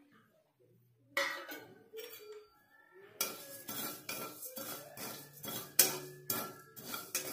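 Metal spatula scraping and clinking against a kadai as whole cumin, mustard, fennel and fenugreek seeds are dry-roasted. Quiet for about the first second, then a clatter, and repeated scrapes from about three seconds in.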